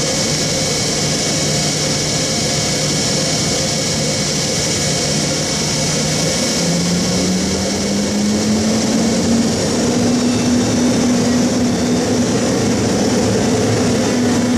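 DB Class 182 (Siemens Taurus) electric locomotive pulling away slowly, its traction drive giving a steady low hum that steps up in pitch about halfway through as it gathers speed, with a high whine above it.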